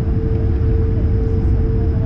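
Steady low rumble inside the cabin of an Airbus A220-100 on the ground, with a constant mid-pitched hum running under it.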